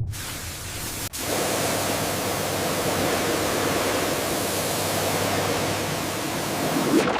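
Steady rushing noise, like a hiss, with a brief dropout about a second in.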